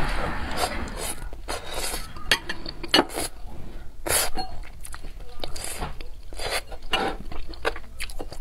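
Close-miked eating of braised fish: irregular chewing and mouth smacks, with chopsticks clicking against the plate.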